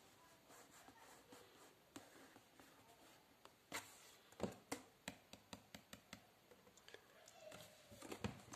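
Faint taps and scuffs of fingers on a cardboard box, with a few sharper clicks about four seconds in and a run of light ticks after.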